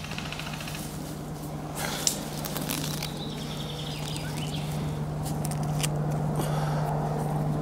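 Footsteps and rustling through brambles and undergrowth, with a sharp snap about two seconds in, over a steady low hum.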